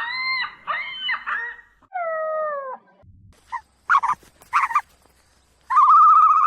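A series of high-pitched whining animal calls: several wavering calls, then a single call sliding down in pitch, a few short sharp yelps, and one longer wavering call near the end.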